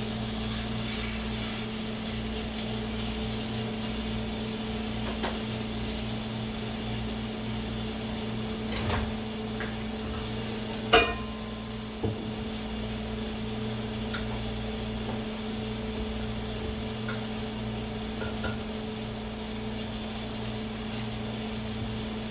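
Chicken sizzling steadily in a pan on the stovetop under a constant low hum, with a few sharp clinks of utensils against cookware; the loudest comes about eleven seconds in.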